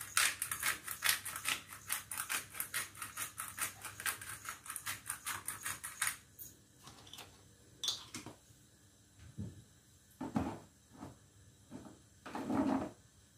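Manual pepper grinder being turned over a pan: a fast, even run of gritty clicks, about five a second, stopping about six seconds in. A few scattered soft knocks follow.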